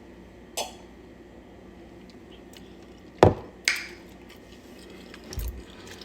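A few sharp knocks and clinks from handling tableware and food containers while eating: one about half a second in, two close together just after three seconds in (the first is the loudest), and a low thump near the end.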